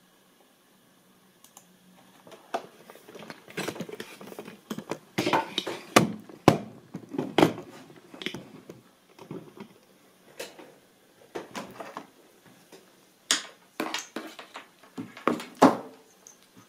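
Handling noise: irregular clicks, knocks and rattles coming in bunches from about two seconds in. Near the end, hands work the XT60 battery plug on the gimbal controller's wiring.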